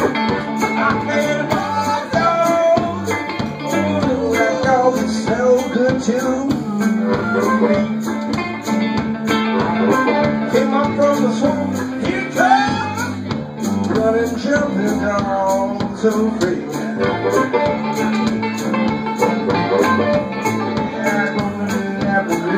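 Live blues band playing: electric guitar, banjo, drum kit and a harmonica played into a microphone.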